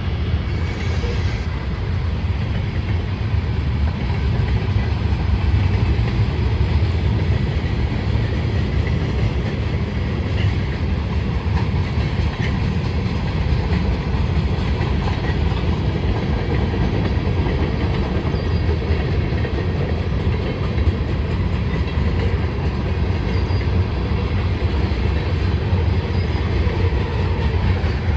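Freight cars of a CSX manifest freight train rolling past steadily, the wheels running on the rails.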